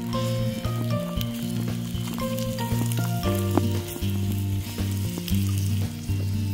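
Pork belly slices sizzling in a frying pan, with scattered crackles, over background music with steady bass notes.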